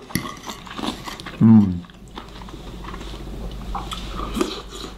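A person eating: a fork cutting meat on a plate and chewing, with a brief voiced murmur about a second and a half in, over a low steady rumble.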